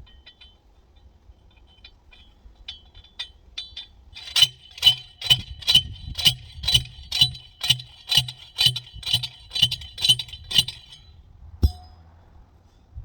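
Steel T-post being pounded into the ground, metal striking metal: a run of about fourteen evenly spaced ringing clanks, about two a second, starting a few seconds in after some light clinking, then one last single knock.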